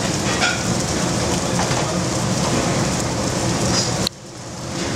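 Food sizzling in sauté pans over the high flames of a commercial gas range, a steady frying hiss. It drops off suddenly about four seconds in and then builds back up.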